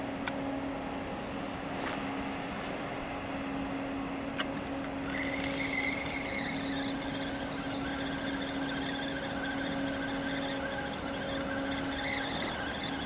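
A boat motor running steadily with an even hum, with a few light clicks early on. From about five seconds in a faint whir comes in as the spinning reel is wound.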